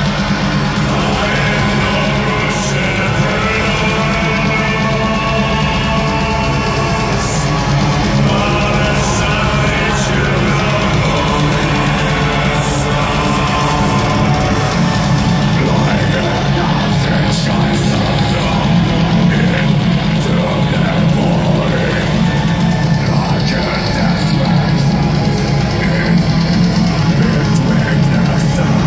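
Blackened death metal band playing live and loud: distorted guitars and pounding drums with harsh vocals, heard from within the audience.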